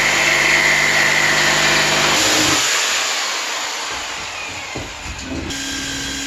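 Electric power tool cutting into a thick piece of wood, its motor running loud and steady. The motor's tone stops about two and a half seconds in, giving way to a quieter, rougher cutting noise, and the sound changes abruptly to a steady hum near the end.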